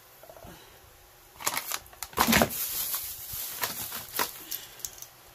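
A run of small plastic clicks and scrapes, loudest about two seconds in: the green screw cap of a plastic olive oil bottle being twisted and handled while oil is measured out by the capful.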